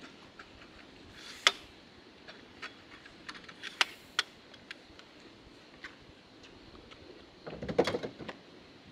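A few sharp, separate clicks and taps, then about a second of rustling and clattering near the end as someone handles things at a car's open rear hatch.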